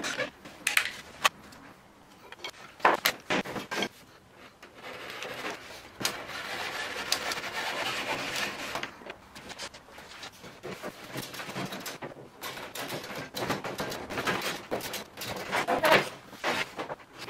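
Knocks and clicks as a bar clamp is handled on the wooden boat frame, then a small hand saw cutting wood for a few seconds, followed by irregular scraping and sharp knocks of wood pieces being handled.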